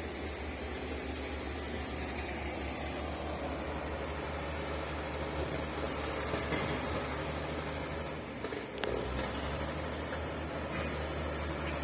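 Shantui bulldozer's diesel engine running steadily under work, with a thin high whine above the engine note. About nine seconds in, the engine sound dips briefly, a knock is heard, and the whine drops in pitch and then recovers.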